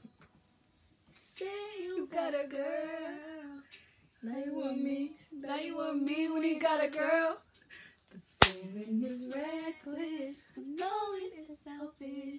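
Young woman's voice singing a melody in held, sliding phrases, with one sharp crack, like a hand clap, about eight and a half seconds in.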